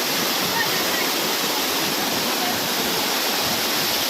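Waterfall: falling water making a steady, even rush of noise.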